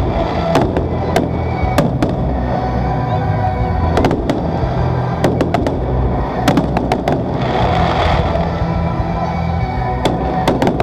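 Aerial fireworks bursting: sharp bangs and crackles scattered throughout, in clusters about four seconds in, around six to seven seconds and near the end, over music with steady held low notes.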